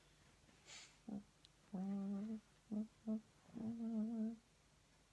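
A person humming with closed lips: a few short notes and two longer held ones on a steady pitch, the last one wavering.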